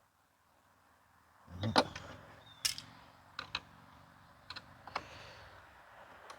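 Knocks and clicks of plastic vacuum-cleaner parts being handled and pried apart during a teardown, over a low hum. The first second or so is silent, then the loudest knock comes about two seconds in, followed by scattered lighter clicks.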